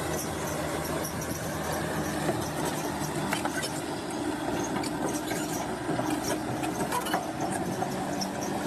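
Bulldozer's diesel engine running steadily, with a few sharp metallic clanks from its tracks and blade.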